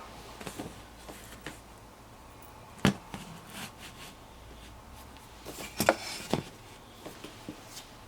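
Scattered light clicks and knocks of a rear wiper arm and blade being handled, with a sharp knock about three seconds in and a few louder knocks about six seconds in.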